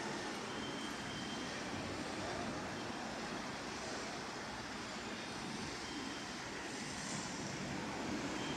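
Steady outdoor city ambience: a continuous rushing noise of distant vehicles, with a few faint short high tones.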